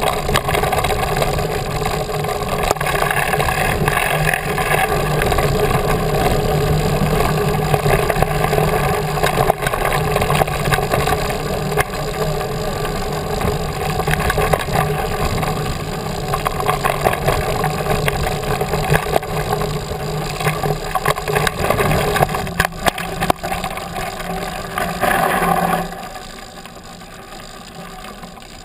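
Bicycle riding fast down a rough dirt fire road: steady wind rush on the handlebar-mounted microphone, mixed with frequent clatter and knocks from the bike, which has no good suspension, jolting over the gravel. It drops off sharply near the end as the bike slows down.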